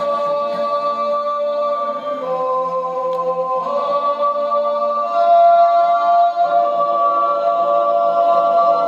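Voices singing a cappella in harmony: long held notes that shift to a new chord every second or two.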